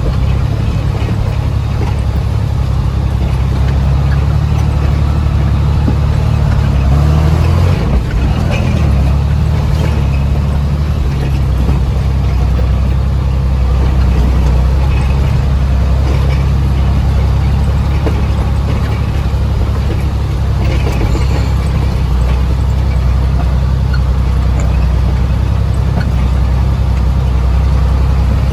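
Heavy machine's diesel engine running steadily under load, its note rising and then dropping back about eight seconds in.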